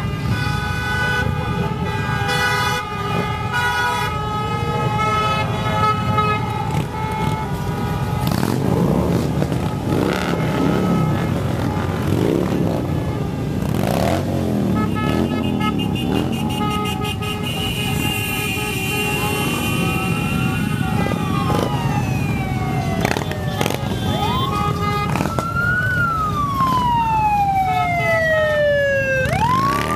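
Harley-Davidson V-twin motorcycle engines rumble as a stream of bikes rides past. In the last third a siren starts to wail, rising and falling in repeated sweeps.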